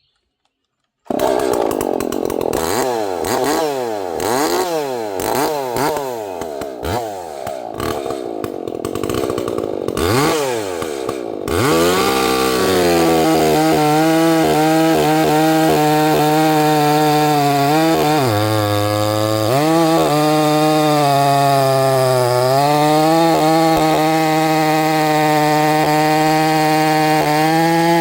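Gas chainsaw cutting oak at full throttle. It starts suddenly about a second in with a wavering, rising and falling pitch, then settles into a steady high-speed note that dips twice as it bogs under load.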